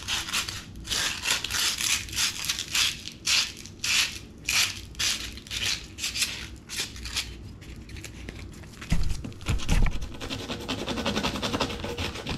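Hand sanding rust off a metal trailer hitch pin with sandpaper: rasping back-and-forth strokes, about two or three a second, then a couple of dull thumps about nine seconds in and quicker, steadier rubbing near the end.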